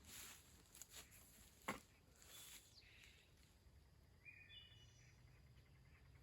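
Faint woodland ambience: a few soft rustles and a sharp click about a second and a half in, with a short bird chirp past the middle.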